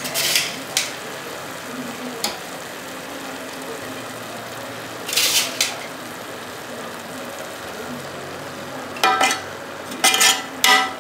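Cooked basmati rice being spooned onto a layer of biryani in a metal pot, heard as two short scrapes of the spoon, about five seconds apart. Near the end a spatula scrapes and clinks against the pot's sides as the rice layer is spread flat, over a steady sizzling hiss from the stove.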